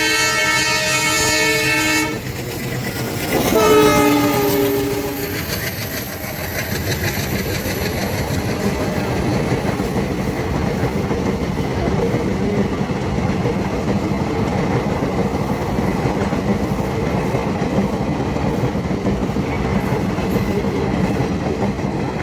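Madurai–Bodinayakanur passenger train sounding its horn twice as it approaches; the second blast drops in pitch as it goes by. Then the train's wheels and carriages rumble steadily past.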